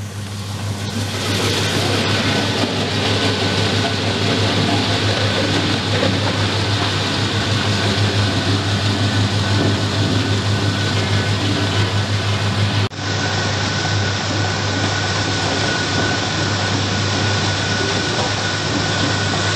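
Peanut-shelling machine driven by an electric motor, running steadily: a constant low hum under a dense noise of nuts and shells passing through it. The sound breaks off for a moment about thirteen seconds in, then carries on.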